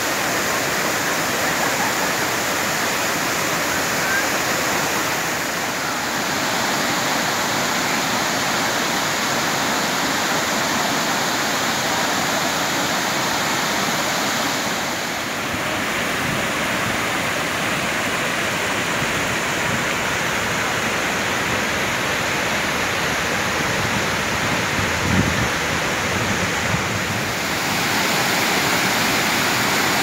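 Waterfall cascading over travertine rock steps: a steady, loud rush of falling water whose tone shifts slightly a few times, with one brief low thump late on.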